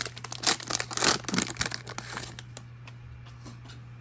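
Plastic wrapper of a trading-card fat pack being torn open and crinkled for about two seconds, then a few faint handling ticks.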